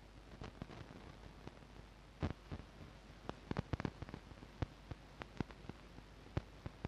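Scattered sharp clicks and knocks from a handheld microphone being picked up and handled, most of them in the middle of the stretch, over a low steady hum.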